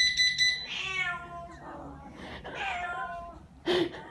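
A household alarm system gives a rapid burst of high electronic beeps for about half a second at the start. Cats then meow over and over in answer, with one short, loud, sharp call near the end.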